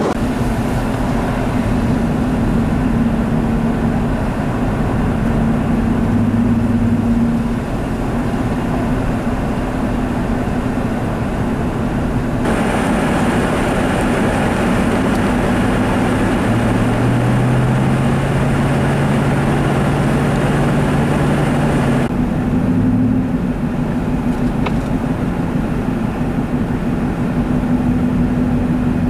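Steady road and engine noise heard from inside a moving vehicle, a continuous rush with a low, even engine hum. The noise changes character abruptly about 12 seconds in and again about 22 seconds in.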